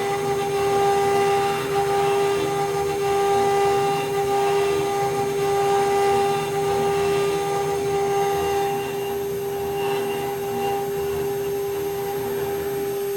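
Desktop CNC mill spindle running at a steady high-pitched whine while milling metal, with rough cutting noise underneath.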